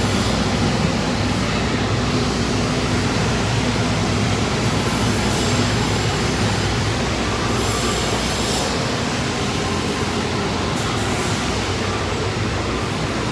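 Steady, loud industrial machinery noise: a continuous low rumble under a hiss, with no breaks or rhythm.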